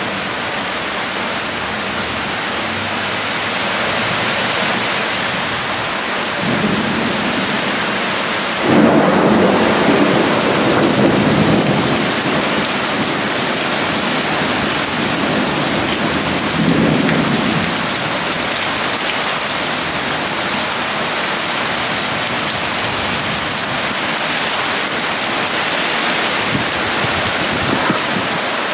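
Heavy rain pouring down steadily in a downpour. Low rumbling swells rise over it about six and a half seconds in, for about three seconds from nine seconds in, and again around seventeen seconds in.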